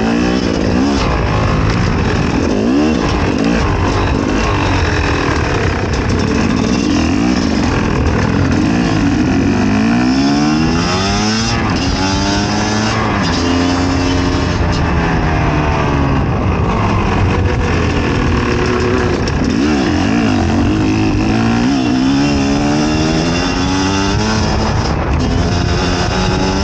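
Fantic XE 300 two-stroke enduro motorcycle engine being ridden, revving up and falling back again and again, its pitch rising and dropping with the throttle.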